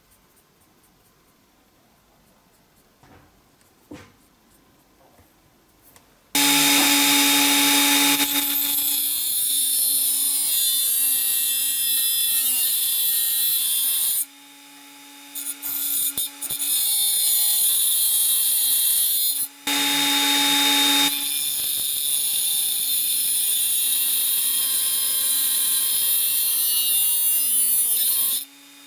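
After about six seconds of near silence with a few faint taps, a small hand-held grinder with an abrasive disc starts up and grinds a small metal part: a steady motor whine under a loud, hissing grind. The grinding eases for a moment twice, leaving the motor running on its own, then picks up again.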